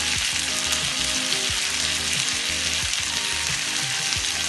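Butter and pepper sauce sizzling in a very hot fry pan under a chicken sizzler: a steady, dense hiss.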